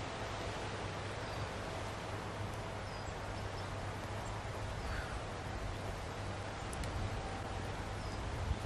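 Outdoor forest ambience: a steady low hiss and rumble with a few faint, brief bird chirps.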